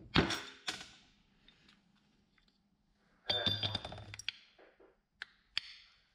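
Metal parts of a disassembled automotive A/C compressor knocking and clinking as they are handled: a sharp knock just after the start, another under a second in, a short rattling clatter with a metallic ring a little past three seconds in, and two light clicks near the end.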